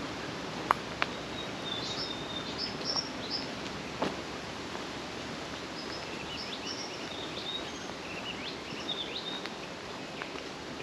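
Small birds calling in two bouts of quick, chirpy high notes, over a steady background hiss, with a few sharp clicks in the first half.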